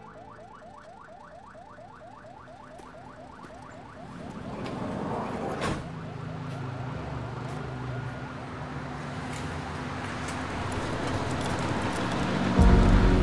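Ambulance siren in a fast yelp, quick rising sweeps repeating several times a second, which fades out after about four seconds. A rising rush of noise then builds, with a sharp crack a little before halfway and a sudden loud low sound near the end.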